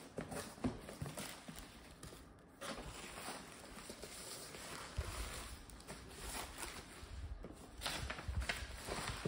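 Hands unpacking a cardboard box: irregular rustling of bubble wrap and paper, with soft knocks and scrapes of the cardboard flaps.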